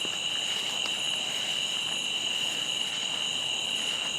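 Steady chorus of crickets and other insects, several high pitches held without a break.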